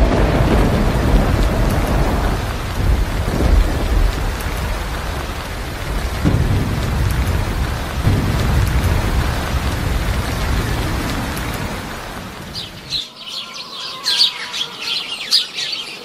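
Heavy rain with several rolling thunder rumbles, which stops suddenly about thirteen seconds in; then birds chirping rapidly.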